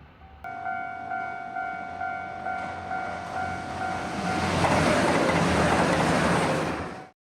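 Japanese railway level-crossing warning bell ringing with an electronic 'kan-kan' at about two strokes a second. About four seconds in, it is drowned out by the loud rush of a JR Shikoku 2700 series diesel express passing the crossing. The sound cuts off abruptly just before the end.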